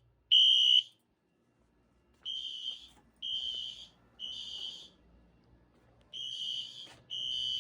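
Fire alarm sounder beeping a high tone in the temporal-three evacuation pattern: three beeps of about half a second each, a pause of about a second and a half, then three more. The first beep is much louder than the ones that follow.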